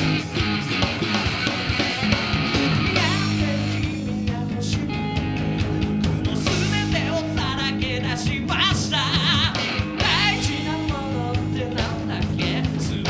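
Three-piece rock band playing live, guitar-driven rock music, with a wavering lead line over it from about three seconds in.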